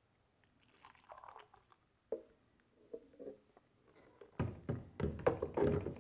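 Blended coffee pouring briefly from a blender jar into a glass beaker, then a cluster of clunks and rattles near the end as the jar is set back down onto the blender's motor base.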